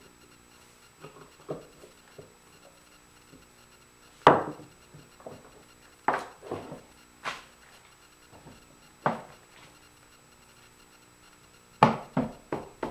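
Irregular wooden knocks and clicks as a small wooden jewelry box and its knob hardware are handled and set down on a bench, the loudest about four seconds in and three quick ones near the end.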